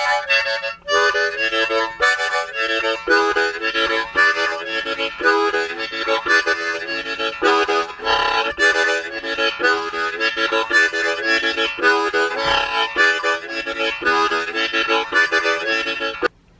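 Harmonica played in quick, rhythmic chords, with several notes sounding at once on each stroke. The playing stops abruptly just before the end.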